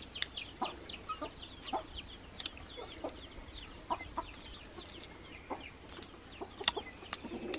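Chickens: chicks peeping in a quick run of high, falling cheeps that thin out after about four seconds, with a few short lower clucks and small clicks.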